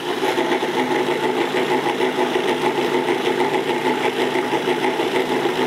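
Food processor motor running steadily with its blade chopping a green pesto, a hum with a rattling whirr over it. It cuts off near the end.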